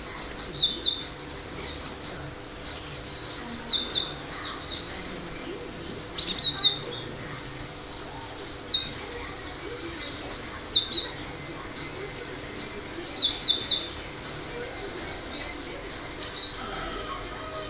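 Cinereous tit (gelatik batu) calling in sharp, quick clusters of two to four short falling notes, repeated every two to three seconds, over a steady high hiss.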